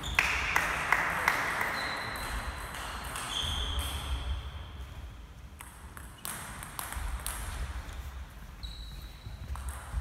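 Table tennis ball clicking sharply, a quick cluster of ticks in the first second or so and a few scattered ones after, as the ball is bounced and knocked about between points.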